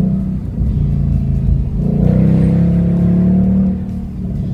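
2022 Ford Mustang GT's 5.0-litre V8 revving on downshifts. The engine note jumps up in pitch at the start and again about two seconds in, holds, then drops away near the end.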